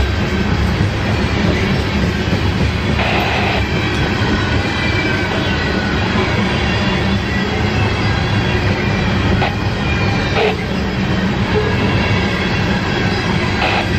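Empty ethanol tank cars of a freight train rolling past close by: a steady rumble and rattle of steel wheels on the rails. A few short, higher screeches of wheel noise come through, about three seconds in and again around ten seconds.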